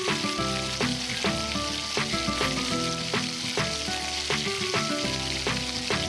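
Chicken pieces deep-frying in hot oil in a small steel pot, a steady sizzle, with background music with a regular beat playing over it.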